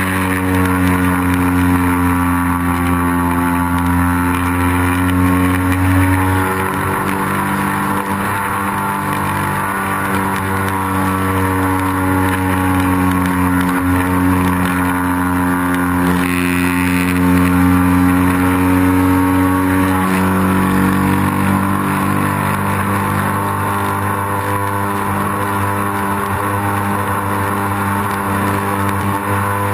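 Piper's engine running steadily in flight, heard from on board, a continuous drone whose pitch drifts slowly down and back up with small throttle changes.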